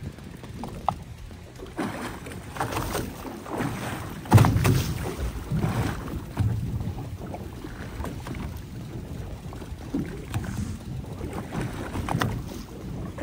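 Water slapping and sloshing against the hull of a small fishing boat at sea, in irregular surges with scattered bumps and knocks. The loudest surge comes about four seconds in.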